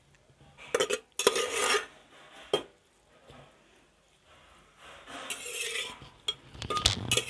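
Steel ladle scraping and clinking against a perforated steel strainer as it presses and spreads boiled grated carrot to drain off the extra water. It comes in a few short scraping bursts with sharp knocks between them.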